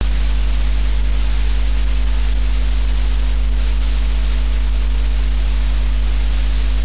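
Steady tape hiss with a loud, constant low mains hum underneath, the background noise of a VHS tape playing over a silent warning card.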